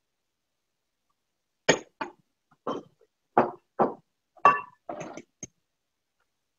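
Chopped vegetables being scooped by hand from a glass bowl and dropped into a glass baking dish. About eight short clinks and knocks come in quick succession from nearly two seconds in, one ringing briefly off the glass.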